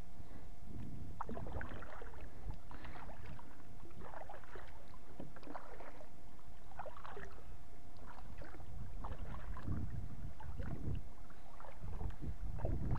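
Kayak paddle strokes in the water: irregular splashes and drips from the blade over a low rumble.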